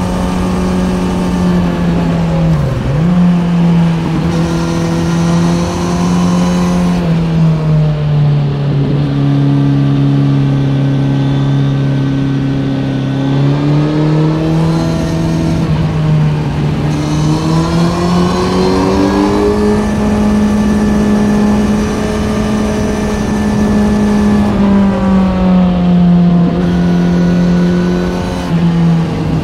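Kawasaki Z900's inline-four engine through an Ixil SX1 full exhaust system, running under way with engine speed changing as it rides through corners. The pitch dips sharply about three seconds in, drops lower for a while, then climbs in steps past the middle and holds high before easing off near the end.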